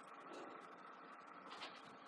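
Near silence: faint room hiss with a few soft ticks, one a little clearer about one and a half seconds in.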